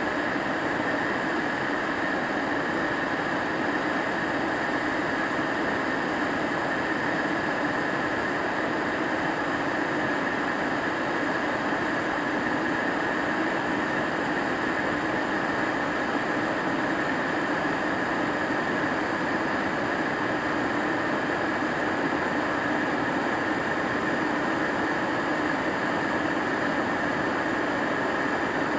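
Kettle heating water: a steady rushing hiss that holds at an even level throughout.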